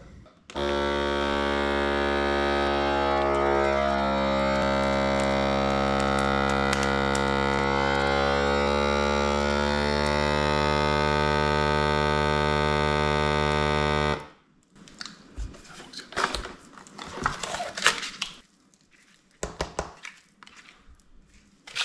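Countertop vacuum sealer's pump running for about thirteen seconds with a steady buzzing hum, its pitch shifting slightly early on as the air is drawn out of the bag, then cutting off suddenly. After that comes the crinkling of the plastic vacuum bag being handled.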